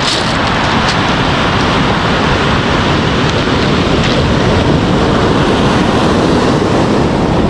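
Ocean surf breaking and washing up a pebble beach, a steady loud rush, with wind on the microphone.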